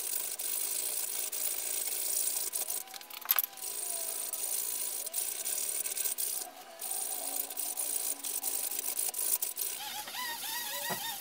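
Hand file rasping in steady strokes on a workpiece clamped in a bench vise, with a few short pauses. Near the end it gives way to short, squeaky chirps.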